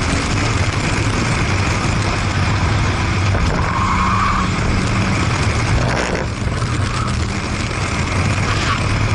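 Car engine running steadily at speed, with heavy wind and road noise on a microphone mounted outside the driver's window. A brief tyre squeal comes about four seconds in as the car takes a bend.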